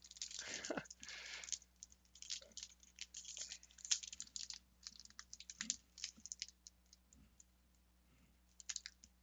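Crinkling and crackling of a foil Magic: The Gathering booster pack wrapper being handled and worked open, a quick run of small clicks that thins out after about six seconds.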